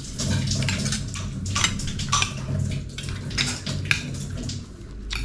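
Clattering and clinking of hard objects knocked together in quick, irregular strikes, over a low steady hum.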